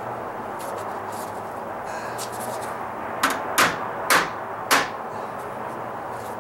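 A hammer tapping metal deck flashing into place along the tile edge: four sharp knocks about half a second apart, starting about halfway through.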